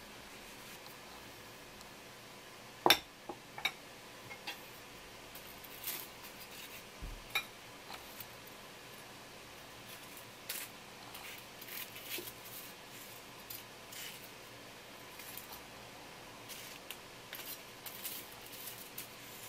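Scattered clicks and knocks of a metal tray and kitchen utensils being handled, with light rustling of paper and crisp tempura. The sharpest knock comes about three seconds in.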